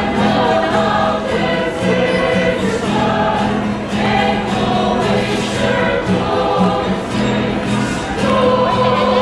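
Choir singing over a steady, sustained low accompaniment.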